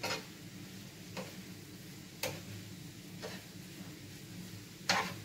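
Wooden spatula knocking against a frying pan while stir-fried noodles are tossed, a sharp tap roughly once a second, the loudest near the end, over a faint low hum.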